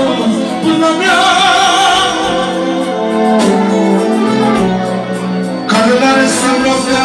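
Live manele performance: a male singer's ornamented, wavering vocal line over steady instrumental backing, loud.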